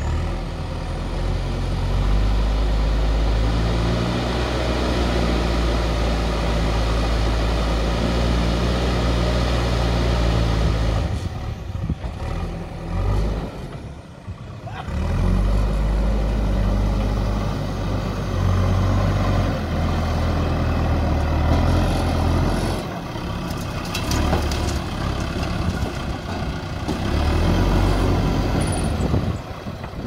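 JCB 3DX backhoe loader's diesel engine working hard as the front loader pushes and lifts dirt. It eases off for a few seconds around the middle, then revs up again and rises and falls with the work.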